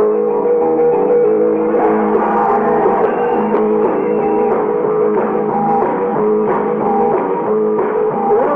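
Live rock and roll band playing, with guitar to the fore in held, sustained notes over the band.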